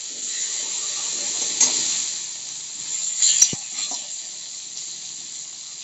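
Chopped tomato sizzling in hot oil in a kadhai, the hiss slowly dying down after the tomato goes in. A spatula scrapes and knocks against the pan a few times, most sharply about three and a half seconds in.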